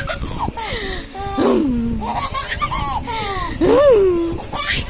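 Baby laughing in a string of squealing bursts that glide up and down in pitch, the two loudest about a second and a half in and near the end.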